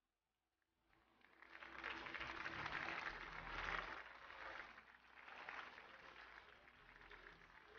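Audience applauding, rising out of near silence about a second in and swelling and easing off several times.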